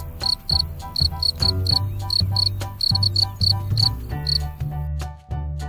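Male field cricket chirping: short, high chirps a few times a second, made by rubbing the scraper of one wing against the file of the other. The chirps stop a little over a second before the end. Background music with a steady bass line plays underneath throughout.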